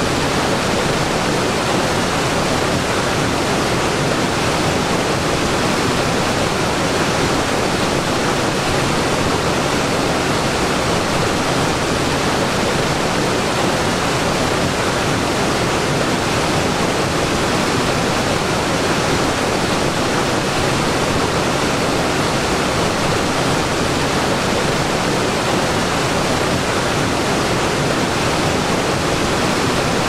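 Double waterfall pouring over rock ledges: a steady, even rush of falling water.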